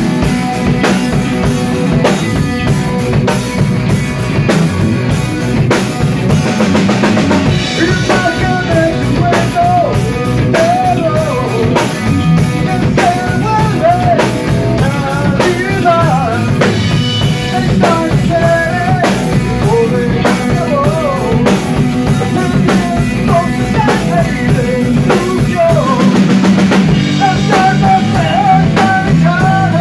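Hard rock band playing live in a rehearsal room: a drum kit, an electric guitar through a Marshall amp and a bass guitar, all steady and loud. From about eight seconds in, a bending lead melody runs over the band.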